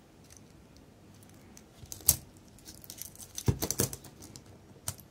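Metal link bracelet of a vintage Omega Constellation watch clicking and clinking as the watch is handled: one sharp click about two seconds in, a quick cluster of clicks around three and a half seconds, and one more near the end.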